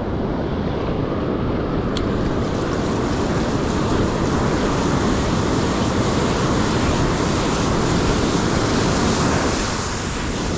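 Rough ocean surf breaking and washing up the beach in a steady rush, with wind buffeting the microphone.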